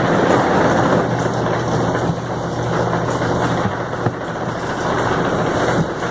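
Farm machinery engine running steadily at a constant speed, a loud, even drone with a low hum.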